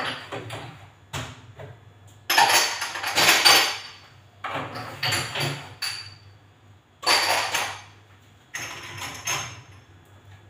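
Dishes and glassware clattering as they are taken from and set onto cabinet shelves and racks, in a run of sharp knocks with a short ring, one every second or two.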